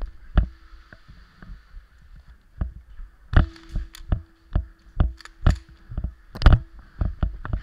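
Footsteps on a hard floor with the worn camera knocking and rattling at each stride, irregular thumps that come faster in the second half. A faint steady hum comes in about three and a half seconds in.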